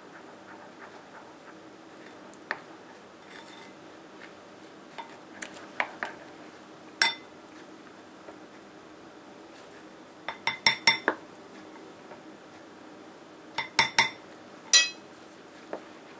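A plastic spoon scooping powdered sugar and clinking against the mixing bowls while it is stirred into the warm gelatin mixture. Scattered sharp taps, with a quick run of four or five about two-thirds of the way in and another short run near the end.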